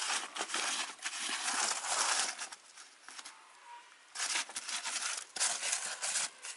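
A hand rubbing and pressing a soil and rice-husk mix across a plastic seedling tray: scratchy rustling in two spells, with a short pause about midway.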